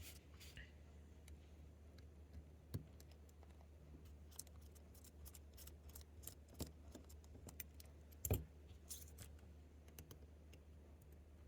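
Faint, scattered clicks and ticks of small metal watchmaker's tools on a watch movement, with a louder knock about eight seconds in, over a low steady hum.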